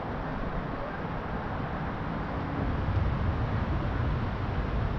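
Wind buffeting the microphone, a steady rumbling noise with no clear rhythm.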